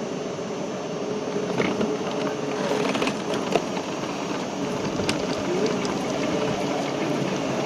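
Steady city street noise: engines running and traffic hum, with a few sharp clicks.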